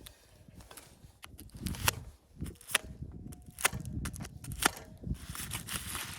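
A series of sharp cracks and knocks, about one a second, over dull low thumps.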